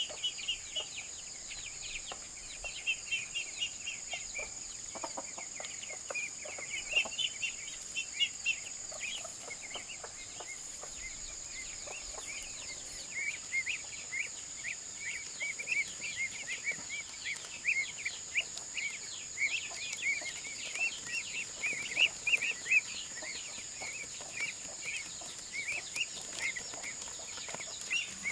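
Young geese (goslings) peeping rapidly and continuously in short high calls, louder and denser in the second half.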